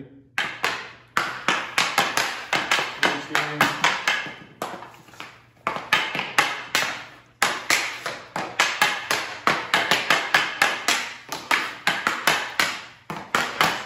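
Hockey stick blade rapidly striking rubber pucks back and forth on a bare concrete floor in a quick-hands stickhandling drill: sharp clacks, about three or four a second, with a couple of brief pauses.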